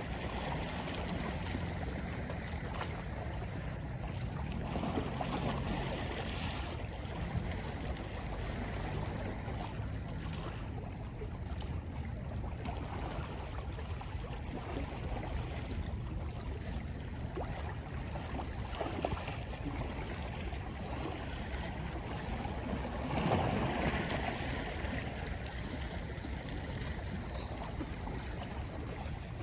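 Sea waves washing ashore, a steady rushing wash that swells a few times, loudest once near the end.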